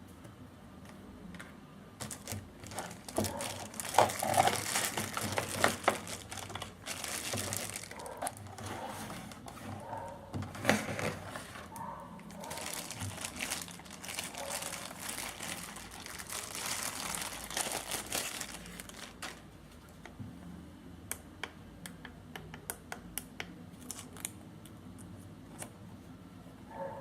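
Plastic packaging crinkling and rustling as it is handled, in dense irregular stretches, then giving way to scattered light clicks near the end.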